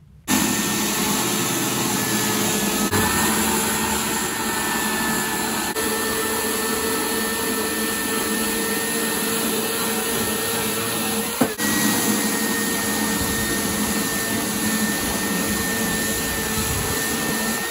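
Corded electric chainsaw running steadily with a whine, cutting through the wooden legs of a vintage table.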